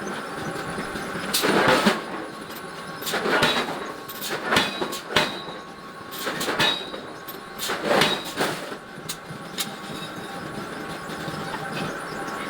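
Metal forging of large iron blocks: forge machinery runs with a steady hum while about six heavy metal impacts, each with a brief ring, land irregularly over the first eight seconds, then the hum continues alone.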